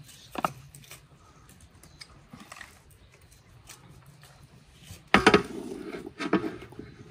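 Scattered knocks and clinks of dishes and cutlery, with a louder clatter about five seconds in and another about a second later.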